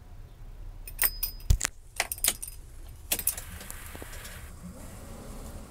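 A bunch of keys on a brass tag jingling and clicking as they are handled at a truck's ignition: a quick run of sharp metallic clicks with one louder knock, followed by a steady low hum.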